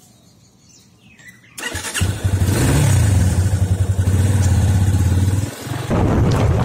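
Yamaha motorcycle engine started about a second and a half in, catching at once and settling into a steady idle. Near the end the sound changes to the bike running on the road with wind noise.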